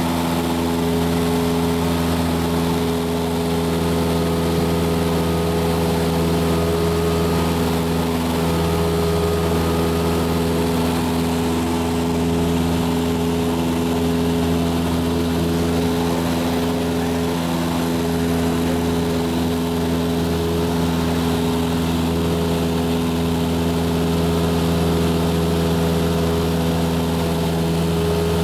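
Piston engine and propeller of a high-wing light aircraft running steadily, heard from inside the cabin as an even drone that does not change.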